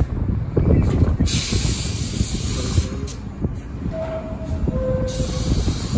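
A New York City subway train stands at the station with a low steady rumble. Bursts of loud air hiss from its pneumatics come about a second in and again near the end. A faint two-note falling tone sounds about four seconds in.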